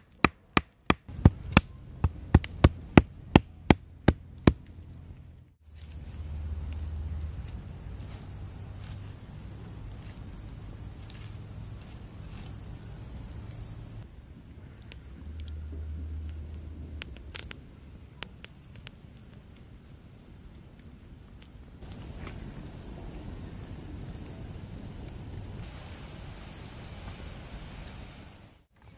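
About a dozen sharp knocks of a wooden stick pounding a root against a log in the first five seconds. Steady high cricket trilling throughout. In the second half a wood fire burns, and near the end water boils in a clay pot.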